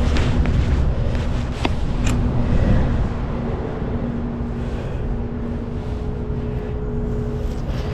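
Low rumble of wind and fabric against a body-worn camera's microphone, with a few sharp handling clicks in the first couple of seconds. From about three and a half seconds in, a steady motor hum runs underneath.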